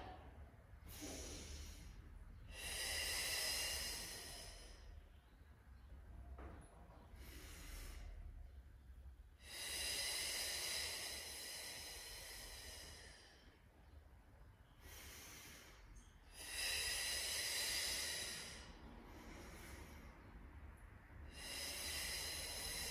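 A woman's paced breathing during Pilates teaser roll-ups: four long, louder breaths roughly every six to seven seconds, with shorter, quieter breaths between them.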